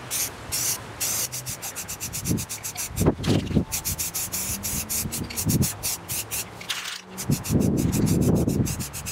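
Aerosol spray-paint can hissing, a few longer sprays at first, then a rapid run of short, spurting hisses, about six a second. Low rumbles come in now and then, the biggest about three seconds in and again near the end.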